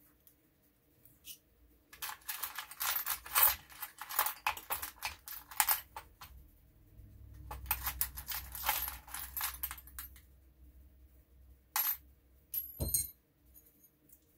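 Metal hex keys clinking and rattling as hands rummage through a tool tray, in two spells of a few seconds each, then a couple of single clinks, the last with a brief metallic ring.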